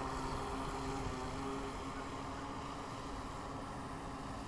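Harbor Freight Neptune RC boat's electric motor whining steadily as the boat runs across the water, growing slightly fainter as it moves away.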